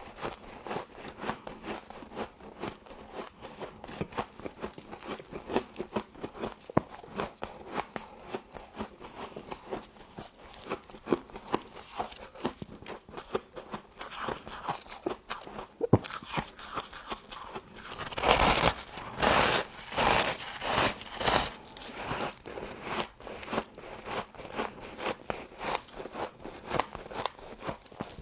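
Humidifier frost being bitten and chewed close to the microphone: dense crackly crunching, with a louder run of bites about two thirds of the way through.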